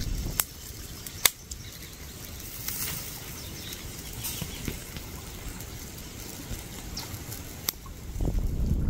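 Faint outdoor ambience, a soft even rustle, with a few sharp clicks or snaps, the loudest about a second in.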